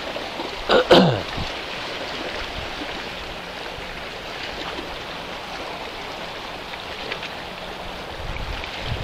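Choppy seawater lapping against the shore and moored boat, a steady wash. About a second in, one brief loud sound slides quickly down in pitch.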